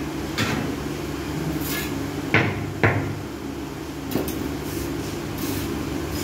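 Two sharp knocks about half a second apart, with a few lighter ones, from a wooden board being handled during floor tiling, over a steady low hum.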